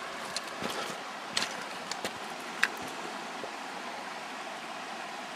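Steady rushing of a shallow river flowing over stones, with a few short light clicks in the first three seconds.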